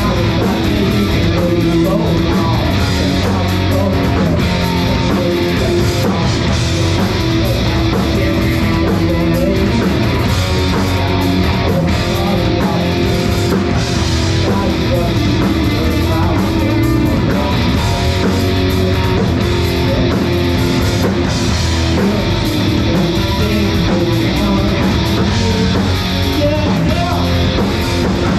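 Live band playing loud amplified rock music, electric guitar and drum kit.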